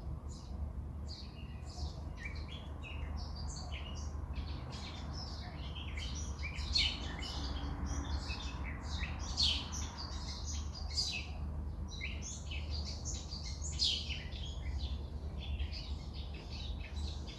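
A flock of small birds chirping and calling, many short, high notes overlapping in a busy chorus, with a steady low hum underneath.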